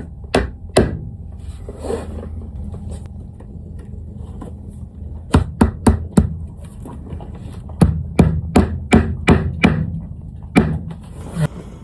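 Hammer tapping small brad nails into slide-out trim: light, sharp strikes in short runs, two at first, then about five in quick succession, then a longer run near the end. A steady low hum sits underneath.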